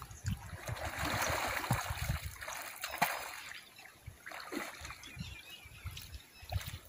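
A swimmer's strokes splashing and sloshing through pond water, loudest in the first few seconds, then lighter and more broken.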